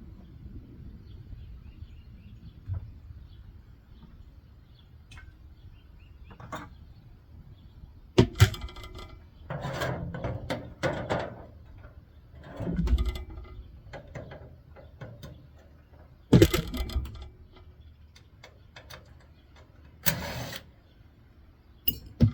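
Metal parts and hand tools being handled while a microwave oven's electronics panel is dismantled: faint clicks at first, then a run of sharp knocks, clanks and a heavy thud, with one brief scraping rasp.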